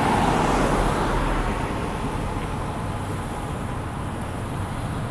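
Road traffic going by on a multi-lane road: the rush of a passing car, loudest in the first second and fading away.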